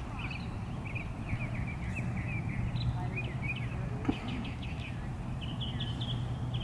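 Birds chirping in quick, repeated calls over a steady low hum, with one sharp tap about four seconds in.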